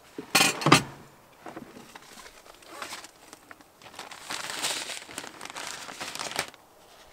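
Crinkling and rustling of a plastic bag of sesame seeds being handled, strongest for a couple of seconds from about four seconds in and stopping abruptly. A brief loud clatter comes just after the start.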